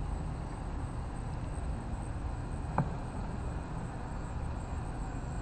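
A knife blade working between the wooden top bars of a beehive, with one sharp click of metal or wood about halfway through, over a steady low rumble.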